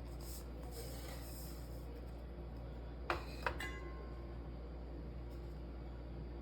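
Two sharp clinks of kitchenware about three seconds in, half a second apart, the second ringing briefly, over a steady low hum.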